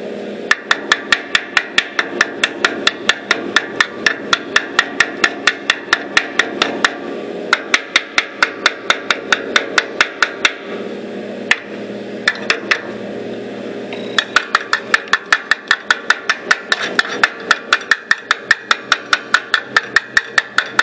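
Hammer tapping rapidly on the steel mower frame at about five even strikes a second, in long runs broken by a few short pauses, over a steady hum.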